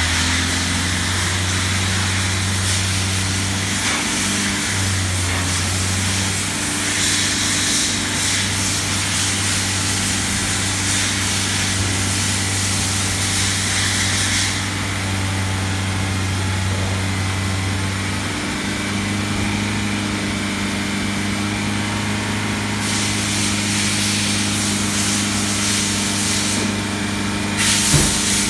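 Car running with a steady low engine drone and hiss that drops and returns several times, with a single knock near the end.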